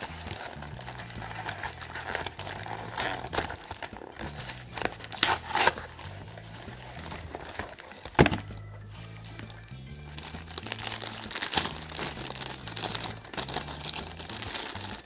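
Packaging crinkling and rustling as toy pieces are unwrapped, with a sharp snap about eight seconds in, over background music with a repeating bass line.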